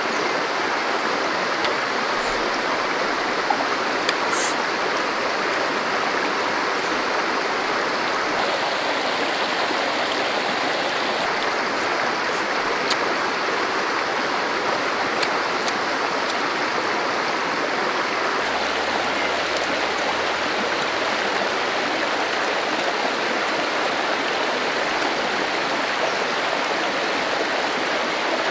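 Shallow forest stream running steadily over rocks and small rapids, with a few faint clicks scattered through it.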